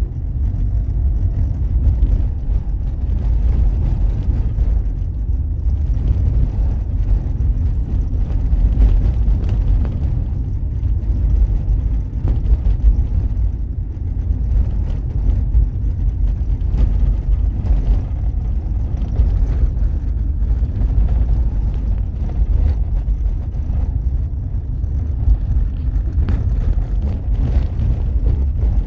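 A vehicle driving along a winding mountain road, heard as a steady low rumble of engine and road noise that holds even throughout.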